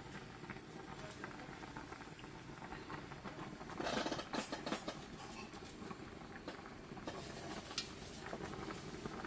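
Soybeans boiling hard in water in a nonstick frying pan, the foam bubbling with a faint, steady crackle of popping bubbles. The crackling grows denser and louder about four seconds in.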